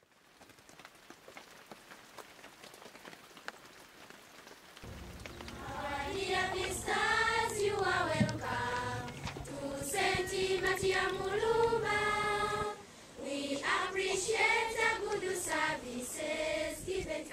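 A children's school choir singing in unison, coming in about five seconds in after faint background noise, with a short break in the singing near the end.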